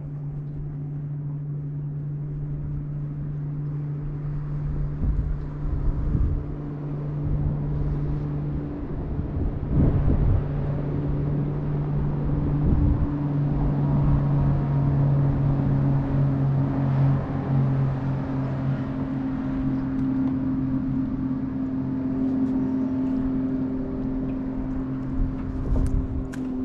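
Boat's electric trolling motor running with a steady hum that shifts in pitch now and then as the boat creeps along.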